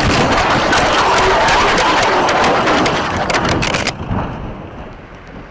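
Vehicle collision with the windshield shattering: a loud, noisy crash full of sharp cracks and clatter for about four seconds, which then falls away abruptly to a quieter hiss.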